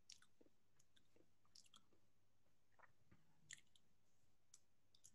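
Near silence: room tone with a few faint, scattered clicks, the loudest about three and a half seconds in.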